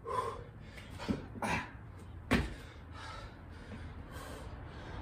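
A man breathing hard through a burpee, with short exhales and a single sharp thump a little over two seconds in as his body lands on the concrete.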